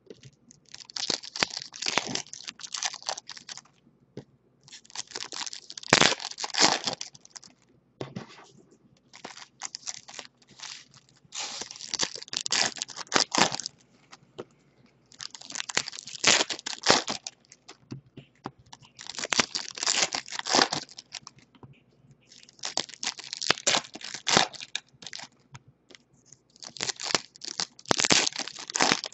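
Foil wrappers of 2019 Bowman Chrome baseball card packs being torn open one after another: about eight bursts of crinkling and tearing, each a couple of seconds long, every three to four seconds.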